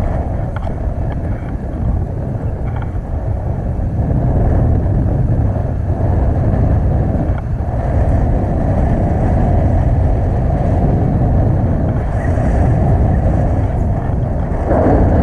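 Steady wind rushing over an action camera's microphone in tandem paraglider flight, a deep, even rumble that grows a little louder about four seconds in.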